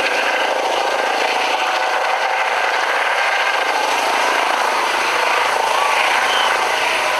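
Massachusetts State Police helicopter hovering low over a field as it comes in to land, its rotor and turbine noise loud and steady.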